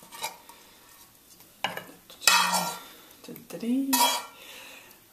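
Cooked steaks being lifted out of a frying pan and set down on a wooden chopping board, with a few clatters and scrapes of the pan, the loudest about two seconds in and again about four seconds in.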